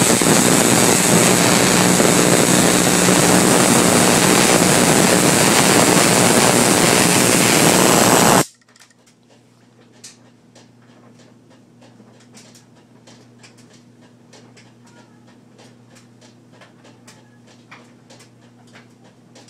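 Homemade high-voltage corona motor running: a loud, steady hiss and buzz of corona discharge that cuts off suddenly about eight seconds in. After it cuts off there is a faint low hum with scattered small ticks.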